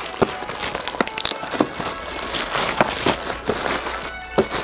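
Plastic packaging crinkling and rustling, with short clicks and knocks of small boxes being handled, over background music.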